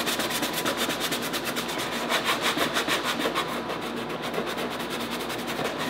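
Hand sanding with the coarse side of a sanding sponge over dried spackle filler on a plastic sign housing: quick back-and-forth rasping strokes, smoothing the filled low spots and gouges.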